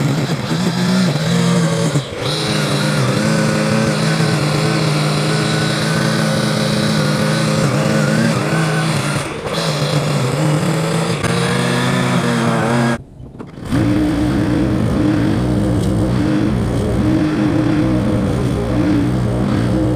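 Small gasoline engine of a yard power tool running steadily. It dips briefly twice, drops out for a moment about two-thirds through, then comes back with a different, steadier note.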